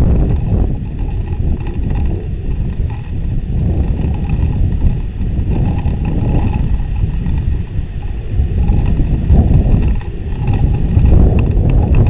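Wind buffeting the nest camera's microphone: a loud low rumble that rises and falls in gusts, swelling louder in the last few seconds.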